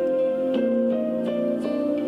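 Gentle new-age background music: plucked, harp-like notes sounding one after another over held chord tones.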